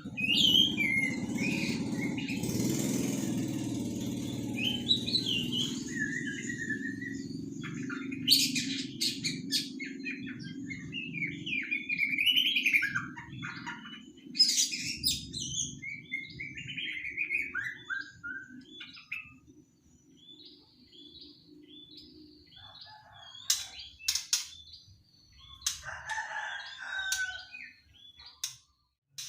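Young white-rumped shama, about three months old, singing varied whistled phrases and rising and falling notes in separate bursts with pauses between, mixed with sharp clicks. A steady low hum runs underneath and stops about two-thirds of the way through.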